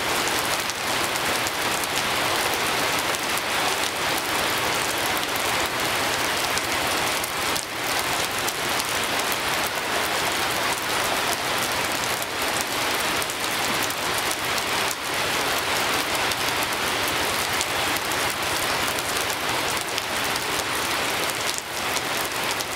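Steady rain falling on a wet road and its puddles: an even hiss with a few sharper drop hits.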